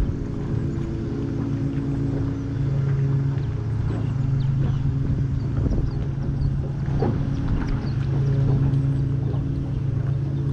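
Jon boat's small motor running steadily with an even hum, with a few light clicks and knocks scattered through.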